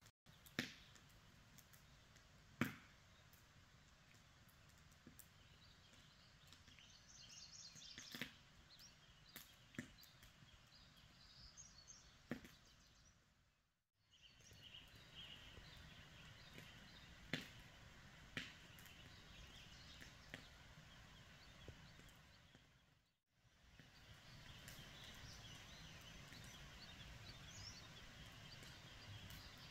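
Faint morning ambience outdoors: distant birds chirping and singing over a low steady background noise, with a few sharp clicks now and then. The sound drops out and fades back in twice.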